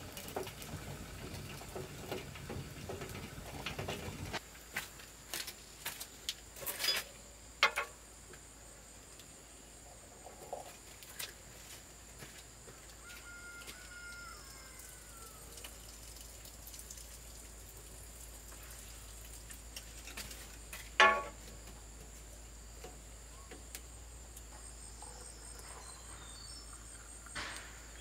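Insects trilling steadily in a high, thin tone, with scattered sharp knocks and taps. The loudest knock comes about three quarters of the way through.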